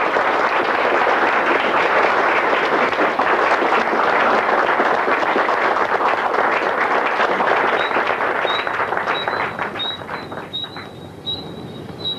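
Audience applauding: dense clapping that thins and fades out about eight to ten seconds in. Near the end a faint, high chirp repeats at a steady pace.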